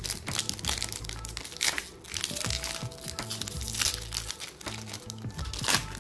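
Foil wrapper of a counterfeit Pokémon card booster pack crinkling as it is torn open by hand, in many short crackles, over background music.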